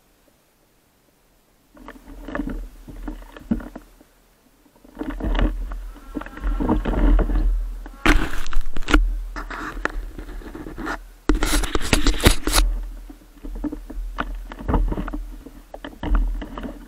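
Snowmobile running in uneven surges after about two seconds of near silence, with heavy low rumble from wind on the microphone.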